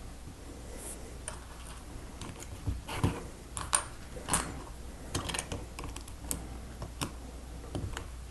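Small plastic Lego pieces clicking and rattling as they are handled and pressed together: a scatter of irregular sharp clicks, busiest in the middle.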